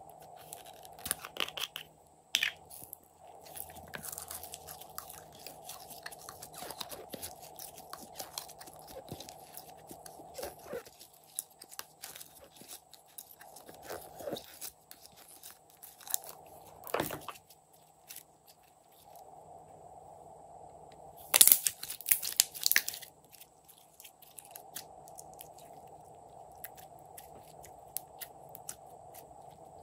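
Slime being squeezed out of a plastic bottle and worked by hand, making a run of small sticky clicks and crackles. The loudest burst of crackling comes about 21 seconds in.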